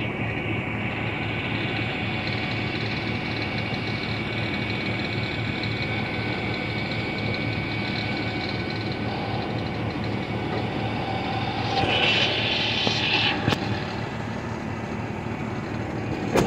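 A vehicle engine running steadily, with a short hiss about twelve seconds in and a sharp click shortly after.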